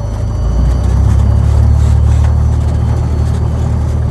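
Light aircraft's engine and propeller running steadily, growing louder about a second in.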